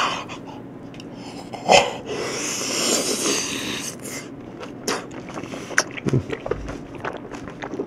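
A man biting grapes off the bunch and chewing them close to the microphone: wet mouth clicks and smacks, with a long breathy noise about two to four seconds in.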